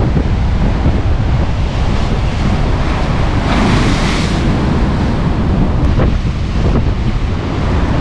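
Storm surf breaking and churning against rocks, with strong wind buffeting the microphone in a constant low rumble. A wave breaks with a louder hissing rush about three and a half seconds in.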